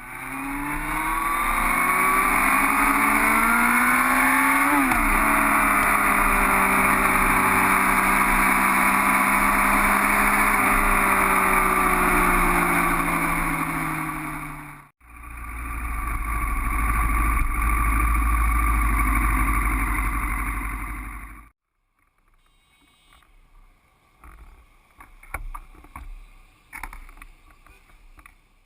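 Motorcycle engine running at a steady speed, its pitch rising and falling briefly about five seconds in. After a cut it runs on under heavy low wind rumble on the microphone, then stops a little past the 20-second mark, leaving only faint clicks and knocks.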